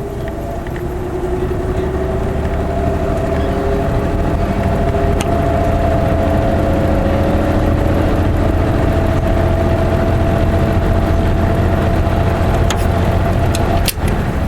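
Fan motor of a vintage Norge-built Montgomery Ward dehumidifier starting up on low speed, with the compressor off. It builds over the first couple of seconds as the fan comes up to speed, then runs with a steady hum. The owner notes the fan blade is slightly off balance. A sharp click comes near the end.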